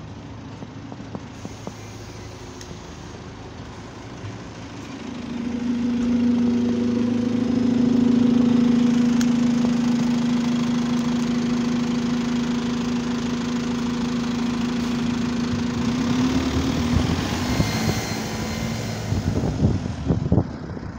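Euro 6 Alexander Dennis Enviro200 bus idling, heard up close at its rear engine bay: a steady pitched idle note that grows louder about five seconds in and drops away near the end.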